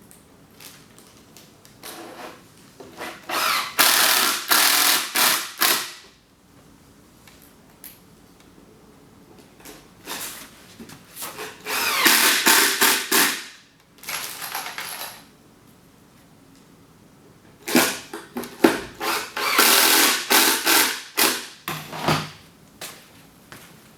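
Power drill driving wood screws into a wooden shelf unit, in four separate runs of a few seconds each, some broken into short stop-start pulses as each screw seats.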